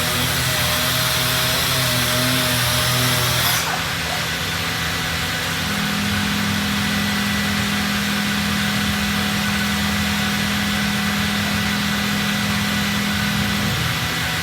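Robotic sanding cell running on MDF doors. A power sander whirs with a high hiss for the first few seconds and cuts off about three and a half seconds in. The machinery's steady drone goes on, with a low steady hum from about six seconds in until near the end.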